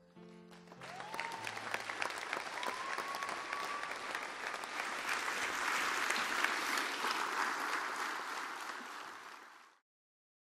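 Concert audience applauding, with a couple of long calls rising over the clapping in the first few seconds, as the last held notes of the music fade out at the start. The applause swells and then cuts off suddenly near the end.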